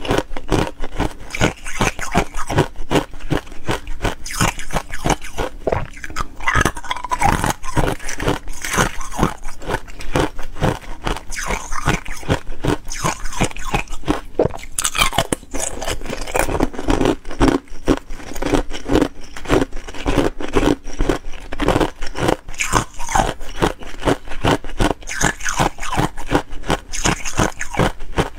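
Thin ice cubes being bitten and chewed: dense, rapid crunching and crackling of breaking ice, with no pause.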